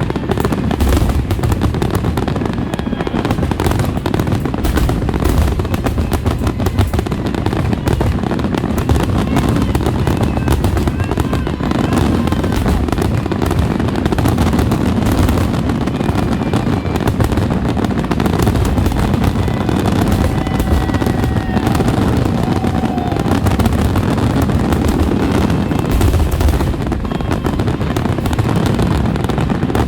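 Fireworks finale barrage: a dense, continuous run of aerial shells bursting and crackling, with rapid bangs overlapping throughout.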